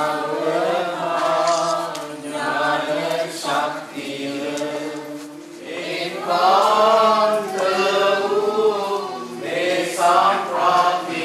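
A choir of many voices singing a hymn in long, held phrases.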